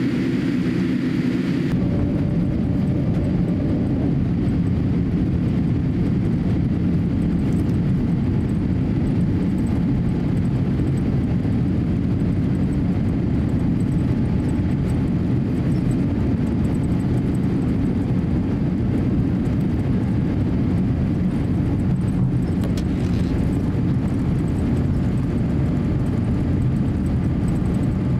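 Steady low rumble and hum of a Boeing 787-8 at low engine power, heard inside the cabin as the airliner taxis onto the runway.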